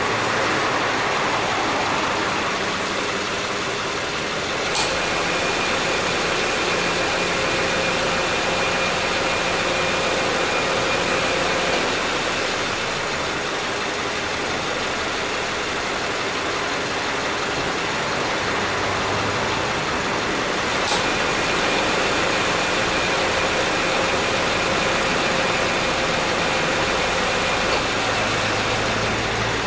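2011 Subaru Forester idling with the air conditioning on; the A/C compressor clutch clicks in about five seconds in, and the compressor runs with a steady whine for about seven seconds before cutting out, then clicks in again about twenty seconds in and runs until near the end. This is the compressor cycling normally after repair, running without abnormal noise.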